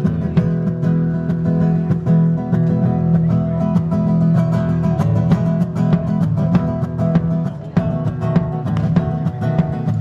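Background music played on acoustic guitar, with a quick run of plucked notes.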